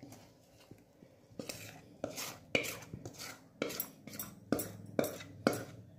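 Thick cake batter being scraped out of a plastic bowl into a metal cake tin: a series of short scraping strokes and light knocks, roughly two a second, starting about a second in.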